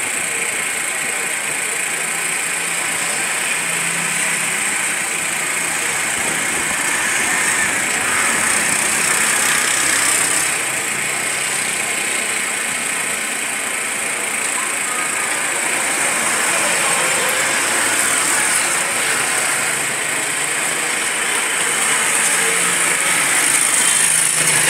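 Road traffic: car, motorcycle and auto-rickshaw engines running and passing, with a steady high hiss underneath. It swells a little about ten seconds in and again near the end.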